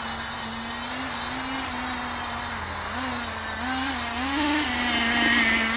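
Nitro RC car's small glow-fuel engine running at low throttle, with a few short blips of revs about three to four and a half seconds in, getting louder toward the end.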